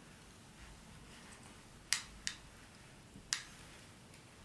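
Faint room tone with three short, sharp plastic clicks as the small wireless microphone transmitters are handled: two close together about two seconds in, and one more about a second later.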